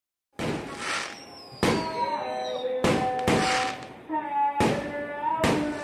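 Aerial fireworks bursting: about six sharp bangs over some five seconds, the first just under half a second in, with a high whistle gliding down in pitch between the first few bangs.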